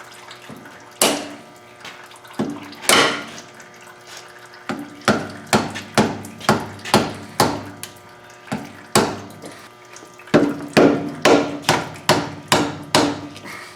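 Hammer blows on a tool driving the old pinion seal out of the differential housing: sharp metallic strikes with a short ring after each. A few single blows come first, then runs of quicker strikes at about two a second.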